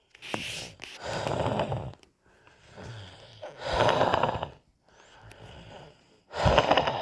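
A person breathing with a wheeze: noisy, rasping breaths, with a louder breath about every two and a half seconds and a weaker one in between.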